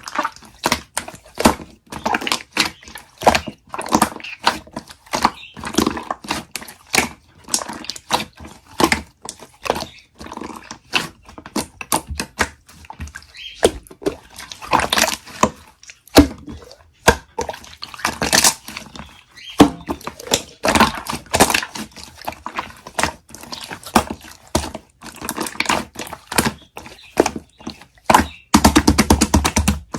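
Hands squishing, poking and stretching slime: irregular sticky squelches and crackly pops, with a fast run of small pops near the end.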